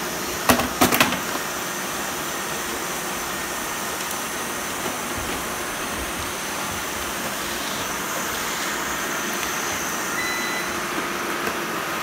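Several robot vacuum cleaners running at once, giving a steady whir. A few sharp clicks come between about half a second and a second in.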